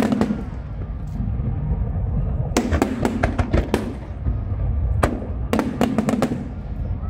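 Aerial fireworks bursting in quick runs of sharp bangs and crackles: one burst at the start, a dense volley in the middle, a single bang, then another volley, over a steady low rumble.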